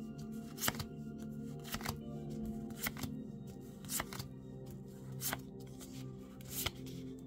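Pokémon trading cards being flipped through by hand, a crisp card snap about once a second as each card is slid off the stack, over soft background music.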